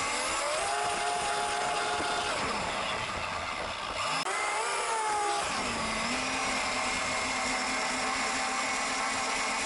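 Thunder Tiger Bandit RC boat's motor whining under throttle: the pitch climbs about half a second in, holds, drops after about two seconds, climbs and drops again around four to five seconds in, then settles to a steady lower whine.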